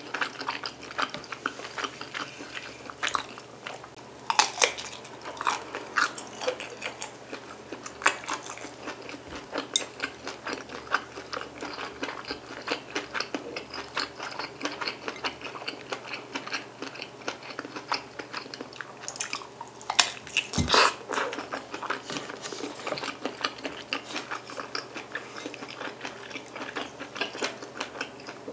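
Close-miked chewing and biting of meatballs and sausage in rosé sauce, with many small wet mouth clicks throughout. One louder sound comes about two-thirds of the way through.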